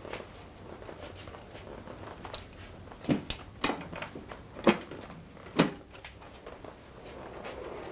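A handful of sharp knocks and clunks, about five, clustered in the middle: a mobile patient hoist being handled and wheeled.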